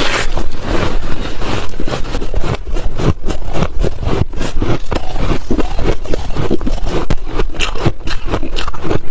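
Crunchy refrozen ice being chewed close to the microphone: a fast, uneven run of crisp crunches.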